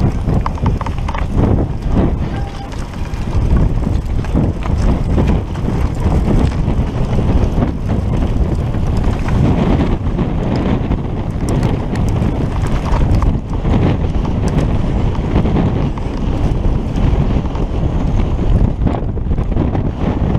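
Wind buffeting a helmet-mounted camera's microphone on a fast mountain-bike descent, with tyres crunching over loose rock and the bike rattling and clattering over the bumps.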